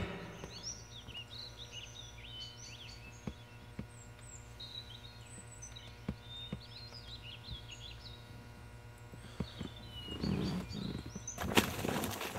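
Small birds chirping and singing over a steady low hum, with a few faint clicks. About ten seconds in, rustling starts, and near the end it turns into louder footsteps crashing through undergrowth.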